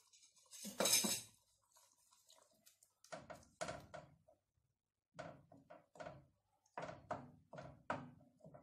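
Wooden spoon stirring thick grated-tomato sauce in an aluminium pot: a run of short scrapes and soft knocks against the pot, with a louder knock about a second in.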